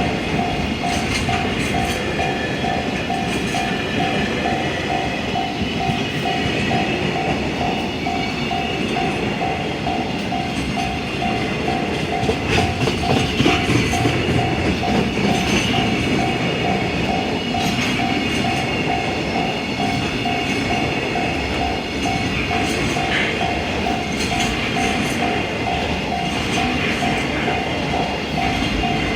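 A freight train rolling steadily through a level crossing, its wheels clattering over the rail joints. The crossing's warning bell rings on and off in an even, repeating rhythm throughout.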